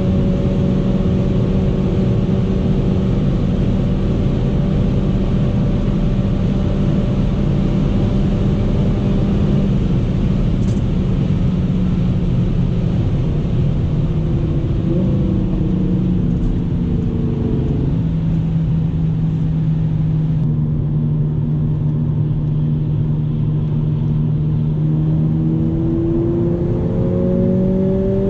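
Mercedes-AMG CLA 45's turbocharged four-cylinder heard from inside the cabin, cruising at about 245 km/h under heavy wind and road noise. About halfway in, the engine note steps down as the car slows to around 140 km/h, and the wind hiss fades. Near the end the engine pitch climbs again as it accelerates.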